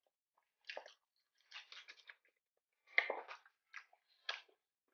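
Close-miked chewing of crispy battered fried calamares and shrimp tempura: a few short, irregular crunches, the loudest about three seconds in.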